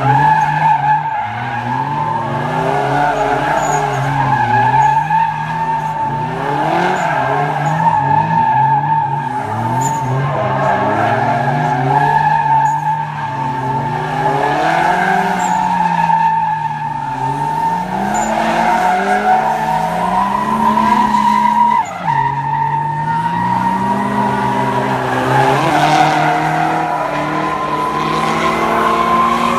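Two drift cars sliding in tandem, tires squealing in a steady high howl while their engines rev up and down under the throttle.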